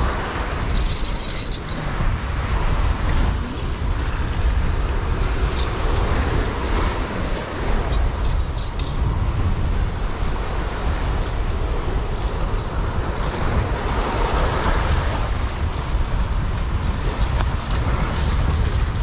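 Steady wind rumble on the microphone mixed with the wash of surf.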